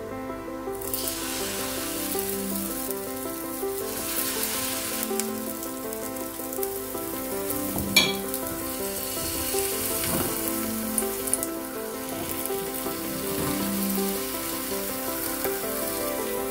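Chickpea-flour batter sizzling as it fries in hot oil in a nonstick pan; the sizzle sets in just under a second in as the batter meets the oil. A single sharp click about halfway through, with background music playing underneath.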